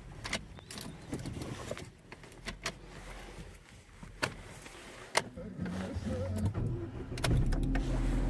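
A car being started: several sharp clicks and key jingles at the ignition, then the engine turns over, catches and settles into a steady low idle near the end.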